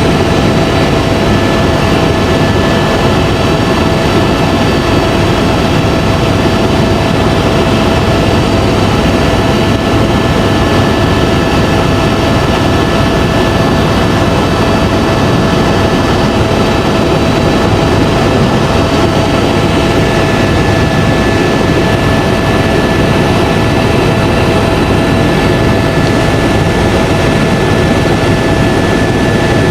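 Helicopter in flight, heard from inside the cabin: a steady, loud rumble of rotor and engine with a constant high turbine whine.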